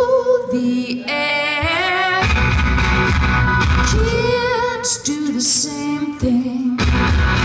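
A live rock band with a female lead singer: sung phrases with wavering held notes over electric guitars and bass.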